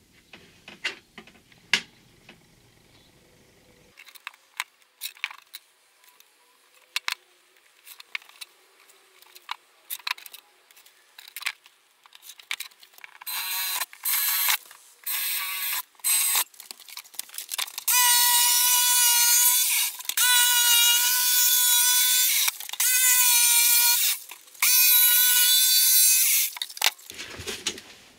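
Light taps and clicks of marking out a plywood worktop. Then a cordless drill boring into the plywood in short stop-start bursts, followed by four longer, louder runs of a power tool's motor whine as the rectangular opening for a gas hob is cut out.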